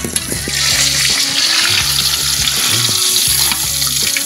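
Hot oil sizzling steadily around a whole gourami being deep-fried in a wok while it is turned with a spatula. The sizzle grows louder about half a second in.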